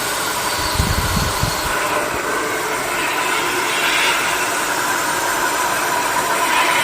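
Steady rushing of an air blower cleaning dust out of a laptop's cooling fan, spinning the fan fast, with a faint steady whine over it.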